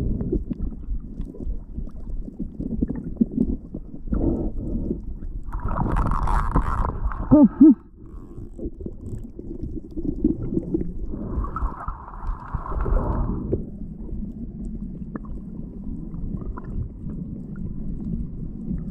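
Muffled underwater sound picked up by a submerged action camera: a low rumbling wash of moving water, with two louder gurgling, bubbling stretches about six and twelve seconds in.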